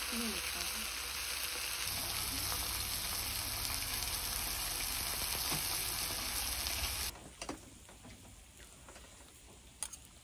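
Pork belly sizzling on a hot pan: a steady frying hiss that cuts off abruptly about seven seconds in. A few faint clicks follow.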